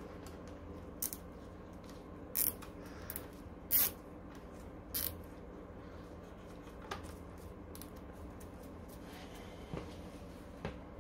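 Scattered clicks, taps and brief scrapes of hand tools and parts being handled during a scooter hub-motor repair, about eight in all, over a steady low hum.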